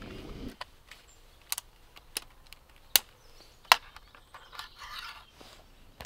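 Sharp clicks and small knocks of a video camera and its tripod and microphone mounts being handled and set up, about five distinct clicks spaced irregularly, with a brief rustle about five seconds in.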